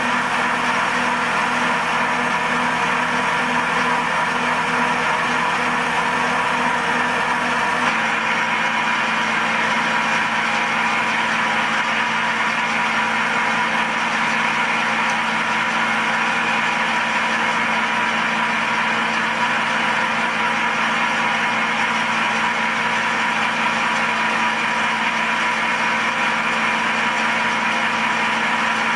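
Milling machine running, its end mill cutting a block of aluminium, with a steady machine hum. About eight seconds in, the main tone steps slightly lower and the higher sound changes, and then it runs on evenly.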